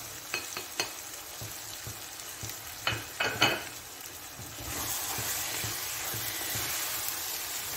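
Mutton in green masala sizzling in oil in a frying pan, with a few light taps early on and two sharper knocks around three seconds in. Past the middle the sizzle turns louder and steady as the meat is stirred with a spatula.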